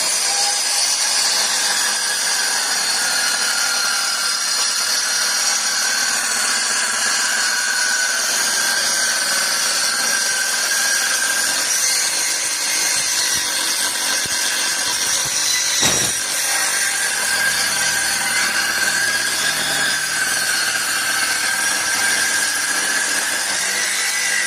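Electric power tool running steadily on wood, its high whine drifting slightly in pitch as the load changes. A single sharp knock comes about sixteen seconds in.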